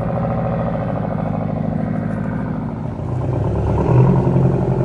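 Semi-truck diesel engine running, its pitch easing down about two seconds in. From about three seconds, a louder, steady engine note takes over.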